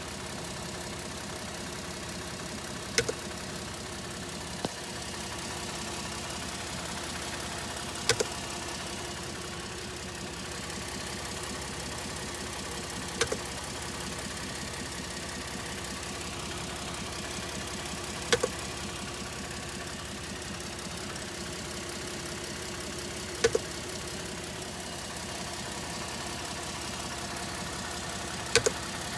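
Idling twin-turbo V6 of a 2013 Ford F-150 3.5 EcoBoost, with a sharp double click repeating about every five seconds, six times in all. The clicking is the strange noise heard by the intercooler.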